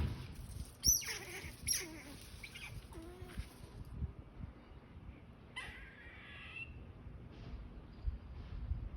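Squirrels calling: two sharp squeaks that fall steeply in pitch about a second in, a few small chirps, then a longer call past the middle.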